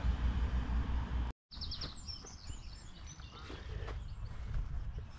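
Wind rumbling on the microphone, cut off abruptly about a second in. Then birds chirping and twittering over a lighter wind rumble.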